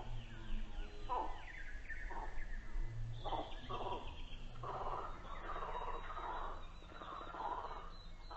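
Frog croaks in an ambient electronic track: a string of rasping calls that come closer together after the first few seconds, over a low steady drone, with faint falling whistle-like tones above.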